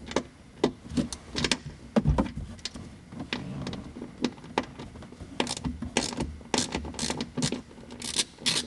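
Ratcheting 8 mm wrench clicking as it backs out the bolts that hold the grab handle to the A-pillar, with a dull knock about two seconds in. The clicks come faster and more evenly from about halfway through, around three a second.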